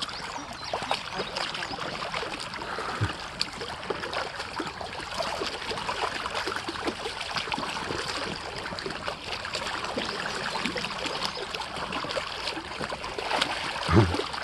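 Running water of a shallow stream trickling steadily, with many small sharp clicks and splashes scattered through it.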